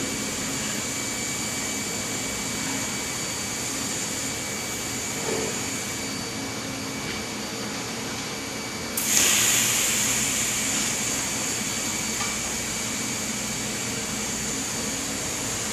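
TIG welding equipment giving a steady hiss with a faint high whine; about nine seconds in a louder hiss starts abruptly and slowly eases off.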